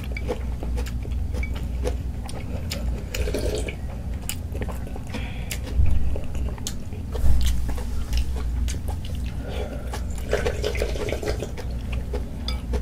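Close-up eating sounds of noodle soup: noodles and broth slurped and chewed, with many small clicks of utensils against the bowl, over a steady low hum. Two louder moments come about six and seven seconds in.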